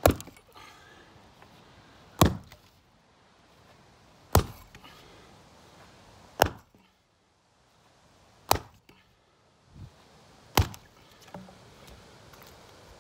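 Axe chopping into an old weathered timber beam: six sharp strikes, about two seconds apart.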